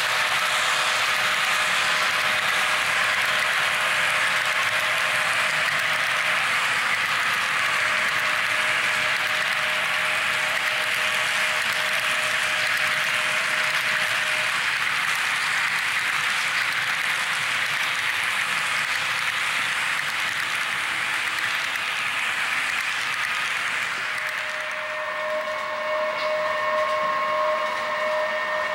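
HO-scale model train running on the layout track, a steady rolling noise of wheels on rail. About 25 seconds in, a multi-tone locomotive horn from a sound decoder sounds, several notes held together.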